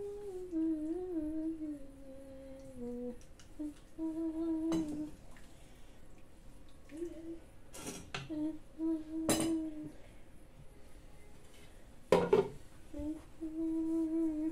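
A woman humming a tune in long held notes, with metal spoon clinks against a granite-coated cooking pot a few times. Near the end comes a louder clatter as the pot's glass lid is set on.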